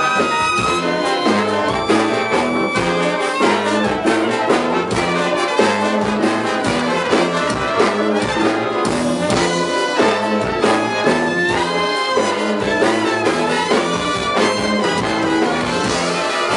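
Big band playing a loud ensemble passage, trumpets and trombones to the fore over frequent drum-kit strikes.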